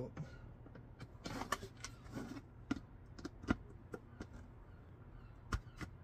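Long-nose pliers working a bar out of a plastic tumble dryer door: scattered clicks, short scrapes and a few sharp knocks of metal on plastic.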